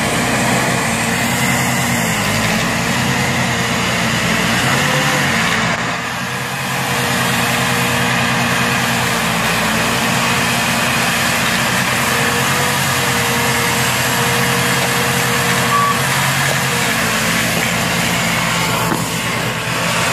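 Diesel engine of a farm tractor running steadily under load while its rear-mounted snow blower throws snow, with a continuous rushing wash of noise over the engine's hum.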